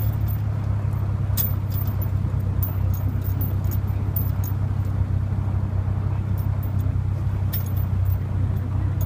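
A vehicle's engine running steadily at low speed, a constant low drone, while towing a track-grooming drag over packed snow, with scattered light clicks over it.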